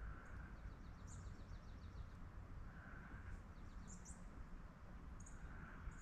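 Faint birds chirping, with short high chirps and quick trills repeating every second or two, over a steady low background rumble.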